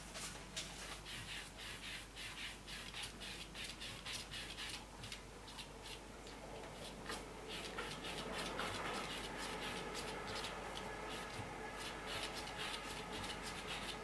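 A cat pawing and scratching lightly at the table around its water bowl and cup, a quick rhythmic run of light scratches, a few a second, as part of its fussing before drinking.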